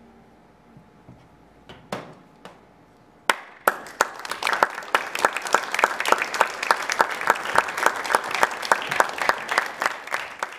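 Audience applause: a few scattered claps, then about three seconds in the whole audience starts clapping together and keeps going.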